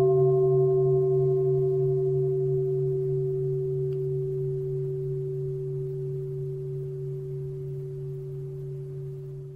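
A meditation bowl bell ringing on after a single strike, several steady tones fading slowly with a slow waver in the low hum, then cut off suddenly near the end.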